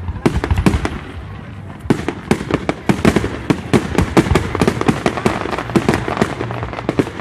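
Fireworks going off in rapid succession: scattered sharp bangs at first, then from about two seconds in a dense crackle of many small reports mixed with louder bangs.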